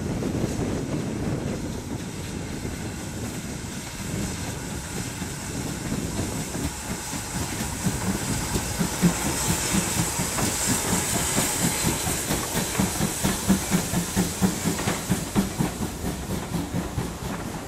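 Two GWR steam tank locomotives working a passenger train past at close range: chuffing exhaust and hissing steam, followed by the coaches' wheels clicking rhythmically over the rail joints as they go by.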